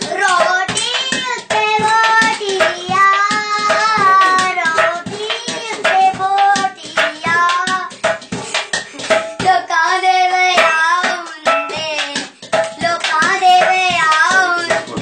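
A boy singing over improvised hand percussion: palms beating a large metal cooking pot and steel plates in a quick rhythm.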